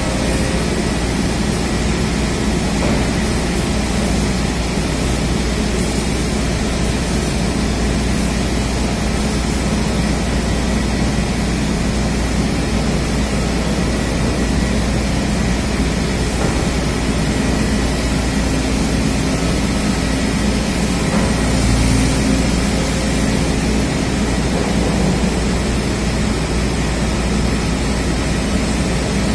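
Excavator's diesel engine running steadily, with a low, even hum.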